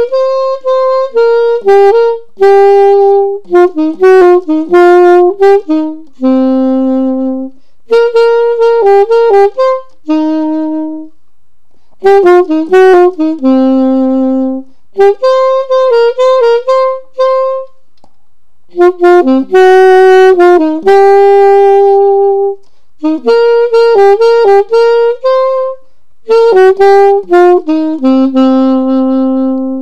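Solo saxophone playing a melody, one note at a time, in short phrases of a few seconds separated by brief pauses.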